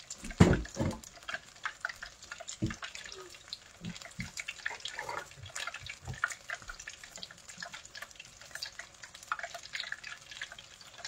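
Battered chicken deep-frying in a pot of hot oil: a dense, steady crackle of small pops from the bubbling oil. One loud thump about half a second in and a few softer knocks later.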